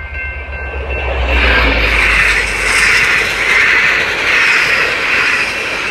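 A passenger train passing close by at speed over a level crossing: a low rumble at first, then a loud roar of wheels on rails that swells and eases a little more than once a second. The crossing's warning bell keeps ringing underneath.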